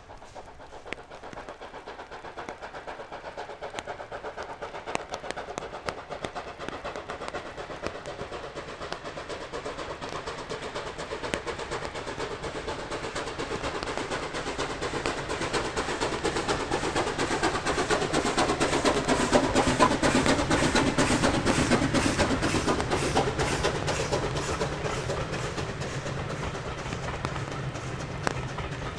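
Steam train approaching and passing, a steady rhythm of exhaust beats and wheel clatter. It grows louder to a peak about two-thirds of the way through, then fades slightly.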